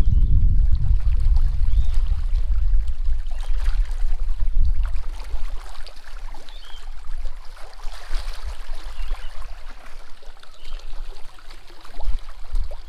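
Small waves lapping against a rocky shoreline, with a low rumble of wind on the microphone that is heaviest in the first few seconds and eases after.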